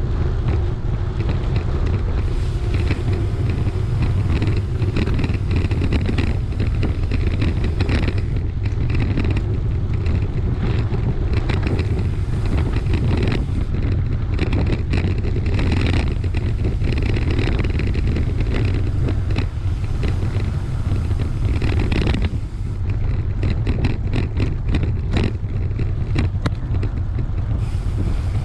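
Wind buffeting an action camera's microphone on a moving bike, a steady heavy rumble, with crackling and scraping from the ride over a rough dirt track.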